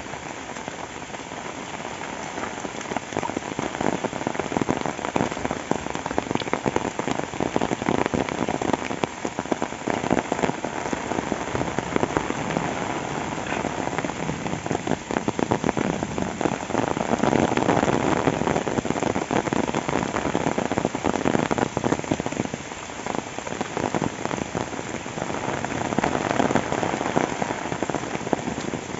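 Heavy rain falling, a dense steady hiss of countless drop hits that swells louder twice, about two-thirds of the way through and again near the end.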